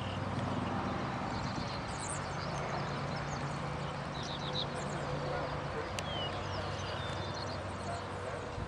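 Open-air background: a steady rushing noise from wind on the microphone, with a faint low hum and short bird chirps a few times, plus one sharp click about six seconds in.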